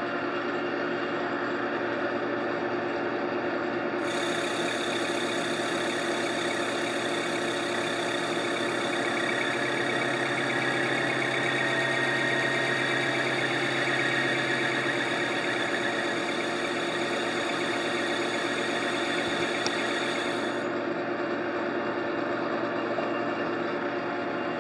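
Boye & Emmes 16-inch engine lathe running steadily under power with a machine whine, taking a turning cut on a wheel spacer.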